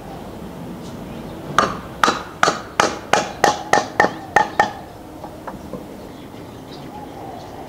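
Steel hammer striking a wooden frame rail about ten times in quick succession, roughly three blows a second, each with a short ring. The blows drive a tenon into its mortise to close a nail-free joint.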